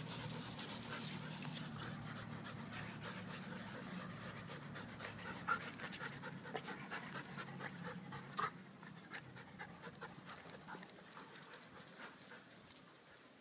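Dog panting close by, growing fainter as it moves off, with scattered light clicks and taps.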